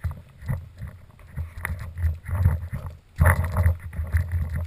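Walking sounds: footsteps on a dirt path, with the knocking and rattling of the carried paintball marker, a few thumps a second and busiest about three seconds in.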